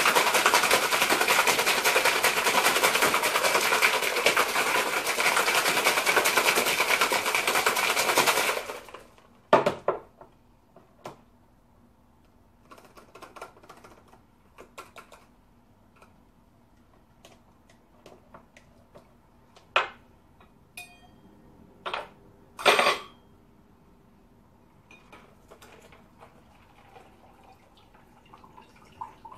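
Ice cubes rattling hard inside a cocktail shaker as a drink is shaken over ice, for about eight and a half seconds before it stops abruptly. A few scattered clinks and knocks follow as the shaker is handled.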